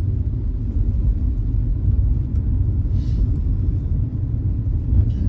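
Steady low rumble of a car driving, heard from inside the cabin, with a brief faint swish about three seconds in.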